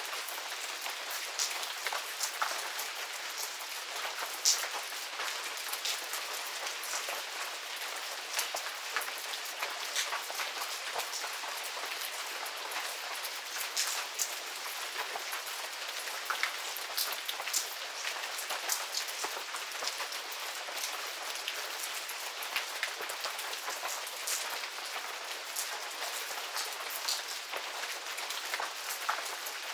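Steady medium rain falling on a garden: an even hiss of rainfall with many scattered, sharper drop hits on nearby surfaces.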